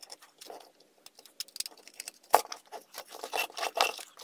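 Small clicks and scrapes from a screwdriver working screws out of a car amplifier's aluminium case and the circuit board being worked loose from it, with one sharper click a little past halfway.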